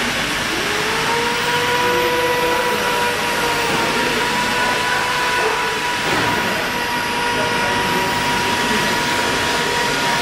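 Steady, loud rushing noise of running machinery, with a whine that glides up just after the start and holds for several seconds, and a higher steady whine from about a second in.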